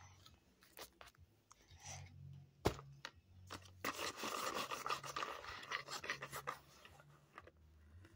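Toys being handled and pushed over a fabric bedspread: rustling and scraping. There is a sharp knock about two and a half seconds in, and a longer stretch of rustling around the middle.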